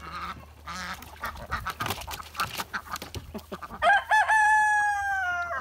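Chickens clucking, then a rooster crows once about four seconds in: two short rising notes and a long held note that drops slightly at the end.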